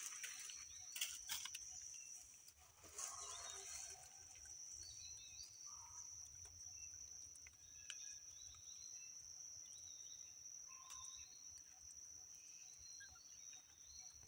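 Faint outdoor ambience: a steady high-pitched drone runs throughout, with scattered faint chirps and a few soft clicks.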